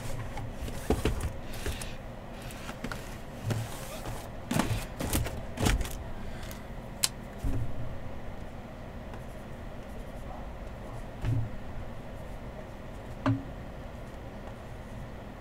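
2020 Panini Contenders football hobby boxes being handled and restacked on a table: scattered taps, knocks and scrapes of cardboard, busy in the first six seconds and then only an occasional bump.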